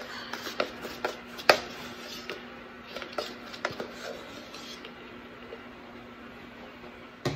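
Plastic scoop and tub of protein powder being handled: a run of light clicks and taps, thinning out after about four seconds, with quieter scooping after that.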